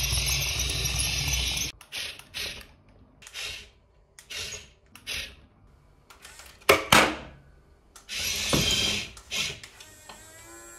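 Toy radio-controlled excavator's small electric gear motors whirring in bursts as the arm and bucket move, the first burst the longest and loudest. Two sharp knocks come close together about halfway through.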